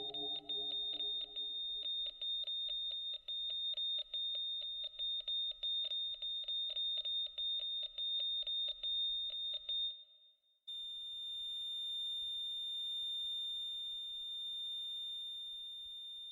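Instrumental outro of an electronic track: a high synth tone pulsing quickly over a low pad that fades away, cutting out about ten seconds in. After a short gap, a steady high ringing tone is held and slowly fades.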